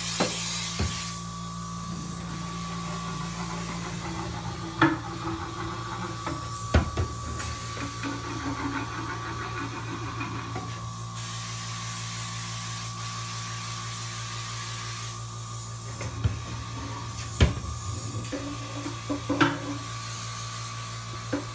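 Steady electric motor hum with a thin high whine over it, broken a few times by sharp clicks and knocks.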